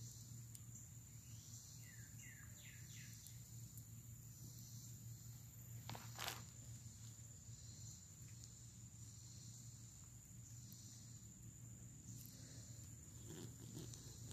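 Near-silent woodland ambience: a steady high insect drone, with a few short chirps about two seconds in and a single sharp click a little before the middle. Some rustling near the end.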